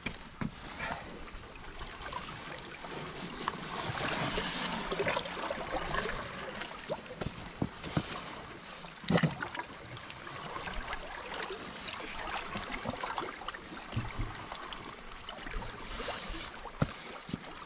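Sea water sloshing against a rocky shore, with splashing, swishes and knocks as a large common skate is handled at the water's edge and eased back into the water. The loudest knock comes about nine seconds in.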